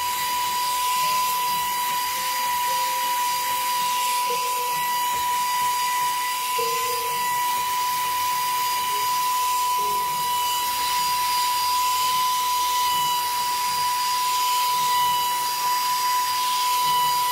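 Saker mini cordless handheld vacuum's brushless motor running steadily, a high, even whine over a rush of air as it sucks.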